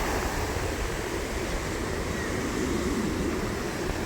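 Steady wind buffeting the microphone, with ocean surf rushing underneath.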